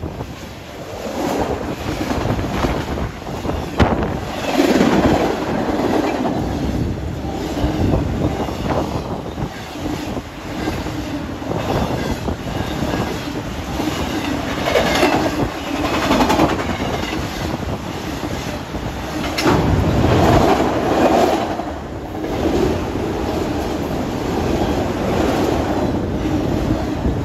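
Union Pacific freight train's boxcars and autorack cars rolling past at close range, a steady rumble with the steel wheels clacking over rail joints again and again.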